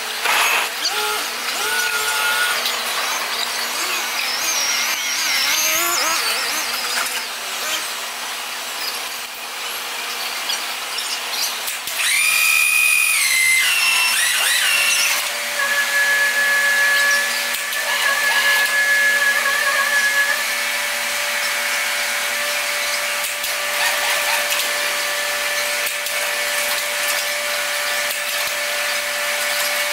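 Locomotive-shop noise: a dense, high whirring like power tools, with shifting whistles and chirps. A steady whine sets in about halfway through.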